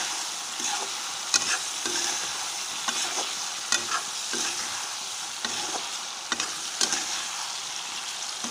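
Cut potatoes frying in hot oil and spiced onion-tomato masala in a kadai, sizzling steadily, while a metal spatula stirs them and scrapes and knocks against the pan every half second to a second.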